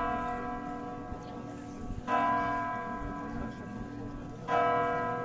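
A church bell tolling slowly, struck about every two and a half seconds: the ring of one stroke fading, then two fresh strokes, about two seconds in and near the end, each ringing on with a clear tone and dying away.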